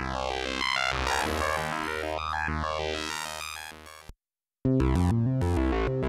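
u-he Bazille software synthesizer playing the 'Sam Penta ARP' preset: a fast arpeggio with a tone sweeping up and down, fading out about four seconds in. After a half-second gap the 'Sam Poly MOD' preset starts, louder, with stepping low notes.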